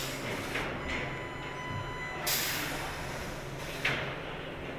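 Steady factory-floor machine noise with two short bursts of hissing, one about two seconds in and a briefer one near four seconds.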